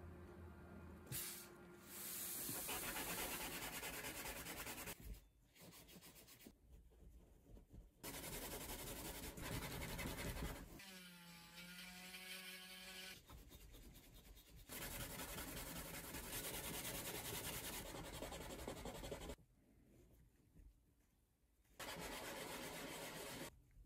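Cured resin pieces being sanded: several short bursts of scratchy rubbing on sandpaper and grinding from a small cordless rotary tool with a sanding bit, separated by pauses. Near the middle the rotary tool's motor hums, bending in pitch and then holding steady.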